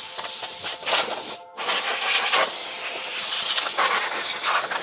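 Compressed air hissing from an air-compressor hose nozzle, blowing metal shavings out of the bottom of a fireplace heater's housing. The blast is let off briefly about one and a half seconds in, then starts again.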